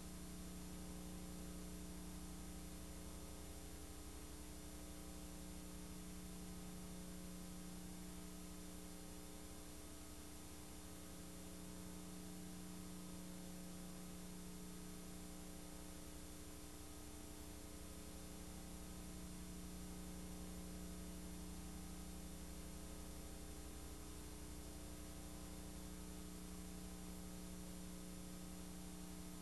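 Faint, steady electrical hum over hiss, with a low tone that slowly swells and fades.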